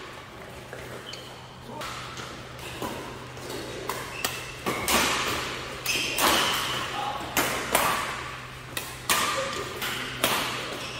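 Badminton doubles rally: rackets striking the shuttlecock in sharp smacks, roughly one a second, with short squeaks of shoes on the court floor.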